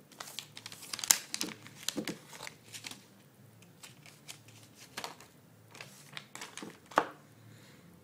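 Metallised anti-static bag crinkling and crackling as a laptop hard drive is unwrapped from it, in two spells of sharp crackles with a lull in the middle.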